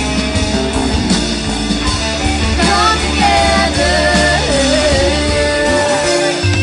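A live rock band playing: female voices singing a gliding melody over electric guitars, bass and drums, heard through the PA.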